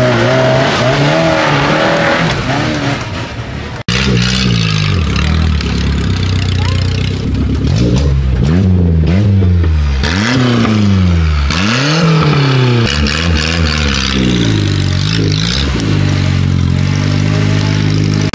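A 4x4 trial vehicle's engine revved up and down again and again, in quick throttle blips about once a second at times, as it works a steep off-road section. There is a brief drop-out about four seconds in.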